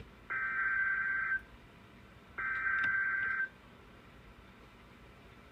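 NOAA Weather Radio SAME (Specific Area Message Encoding) data bursts: two buzzing digital bursts of about a second each, a second apart, the last two of the set of three that codes the start or end of an emergency alert.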